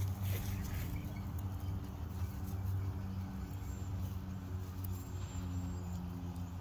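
A steady low engine hum with a few pitched lines that shift slightly in pitch, like a motor running at an even speed, together with a dog's faint sniffing as it noses through dry grass.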